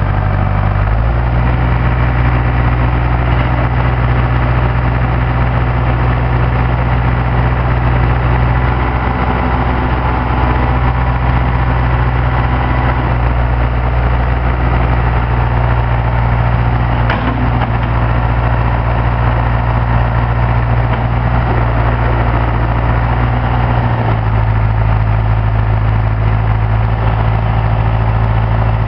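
Case 530CK backhoe's diesel engine running steadily. Its pitch settles about a second in and shifts again near the end, with a brief click midway.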